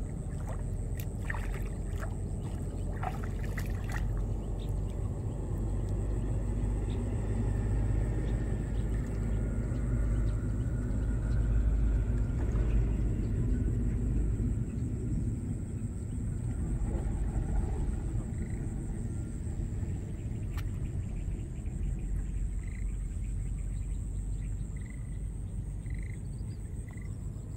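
A gill net being hauled in by hand from shallow water, with splashing and dripping in the first few seconds, over a steady low rumble that swells to its loudest near the middle.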